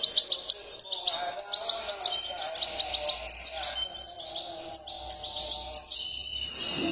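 Young European goldfinches in breeding cages chirping, many quick high calls overlapping into a dense chatter that is busiest in the first couple of seconds.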